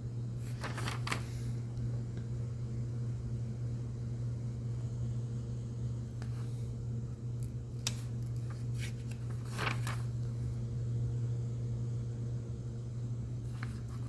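Steady low room hum, with a few brief papery rustles and handling noises of a hymnal's pages about a second in, twice near the middle, and near the end.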